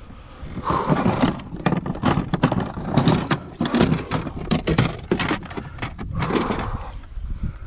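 Irregular knocks, scrapes and rattles of gear against a plastic fishing kayak's hull, made as a large largemouth bass is held in a landing net and the other hand works among the gear.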